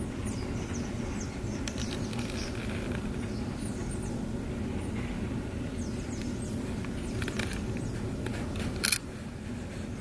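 Steady low rumble of wind with scattered short, high chirps and whistles from a flock of birds at the feeder. A few sharp clicks come through, the loudest about nine seconds in.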